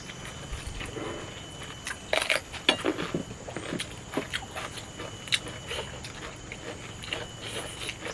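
Close-up eating sounds: chewing and mouth smacking with irregular crunches and clicks, busiest and loudest from about two to four seconds in.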